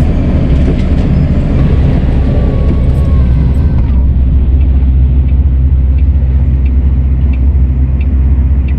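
Steady low rumble of a lorry's engine and road noise heard inside the cab, with faint regular ticks about once a second in the second half.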